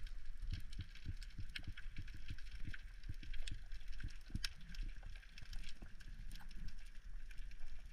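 Muffled underwater sound picked up by a GoPro in its housing in shallow, wave-washed water: irregular dull thumps several times a second with scattered sharp clicks and crackles.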